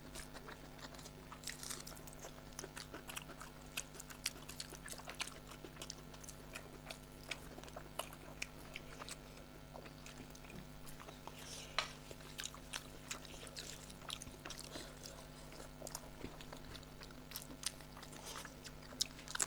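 People chewing and eating rice pulao and spicy chicken curry: a steady scatter of small wet mouth clicks and smacks, over a faint steady hum.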